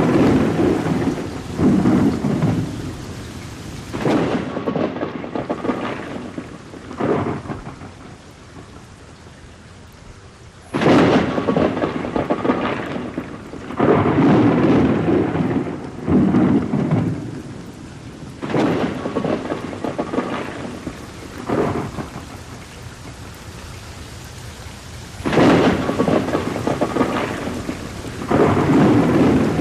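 Rain falling steadily through a thunderstorm, with thunder rolling again and again: each peal comes in suddenly, rumbles for one to three seconds and fades back into the rain. The rain is heard on its own for a few seconds just before the middle.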